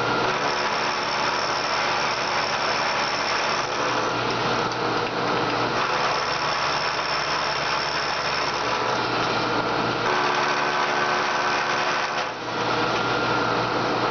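Vertical milling machine running, its end mill taking a roughing cut across an aluminum block. A high whine comes in twice, and the sound dips briefly near the end.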